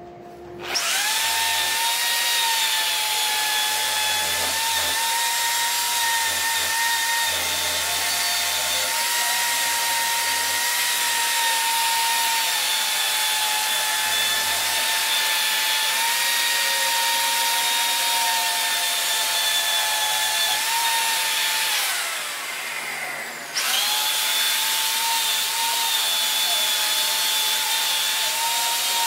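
Corded electric drill spinning a wire cup brush against a rusty rifle barrel, stripping the rust: a steady high motor whine over the hiss and scratch of the wire on the metal. It spins up about a second in, winds down and stops for about a second and a half about three quarters of the way through, then starts again.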